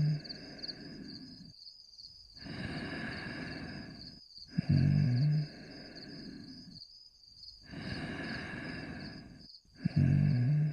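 Cartoon dog snoring in a slow repeating cycle: a loud, low snore about every five seconds, between them long breathy breaths, with a high fluttering whistle running throughout.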